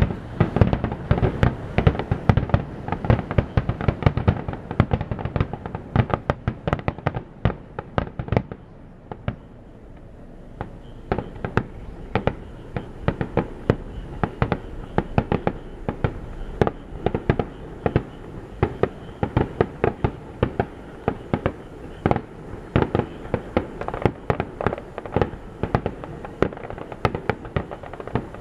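Aerial fireworks bursting in quick succession: rapid bangs and deep booms for the first several seconds, thinning briefly about eight seconds in, then a dense run of sharp pops and crackles.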